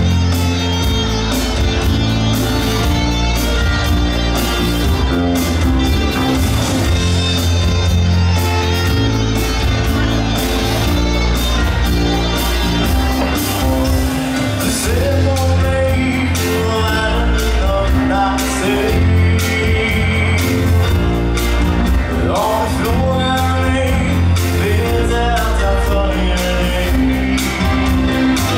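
Live band playing a song, with drums, electric bass, keyboards and guitar, and a man singing lead into a microphone.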